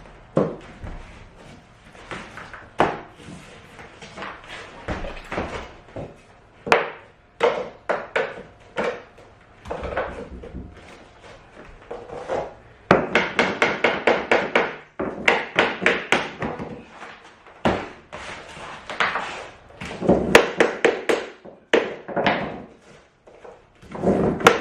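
Hammer knocking a tapping block against cork click-lock floor planks to drive them tight into place: scattered single knocks, with fast runs of several taps a second around the middle and again a little later.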